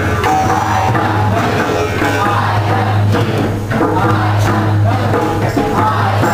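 Music with a steady low drone, a shifting melody above it and hand-drum percussion.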